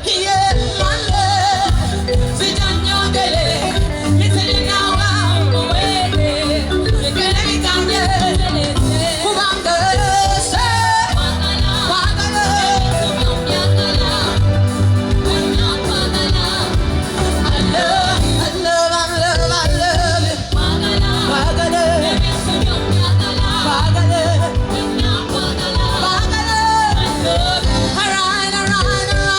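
Live upbeat dance music, a woman singing a love song over a band with a steady pulsing bass beat.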